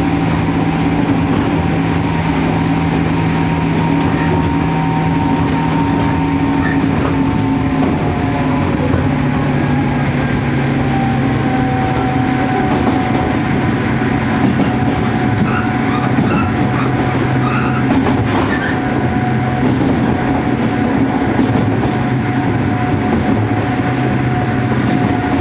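JR Kyushu 103 series EMU motor car running, heard from inside the car: the whine of its resistance-controlled MT55 traction motors and gearing over the rumble and clatter of the wheels on the rails. The whine's tones fall slowly in pitch.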